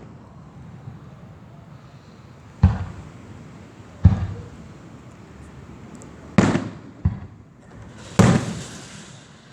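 Fireworks exploding: five sharp booms over about six seconds, each trailing off quickly.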